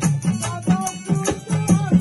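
Live Bengali Baul folk music: harmonium playing with a drum beating a quick, even rhythm, about three to four strokes a second, along with handclaps.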